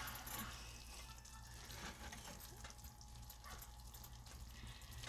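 Ground meat with diced bell pepper and onion sizzling faintly in a skillet, its soy-sauce juices bubbling, while a silicone spatula stirs and scrapes it with scattered soft clicks. A steady low hum runs underneath.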